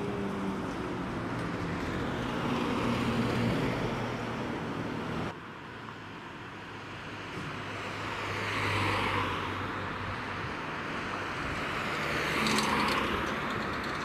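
A siren's wail falls in pitch and fades out in the first second, over steady outdoor noise. About five seconds in, the sound cuts to the diesel engines of MAN fire engines running in the station bay, with two louder swells of rushing noise.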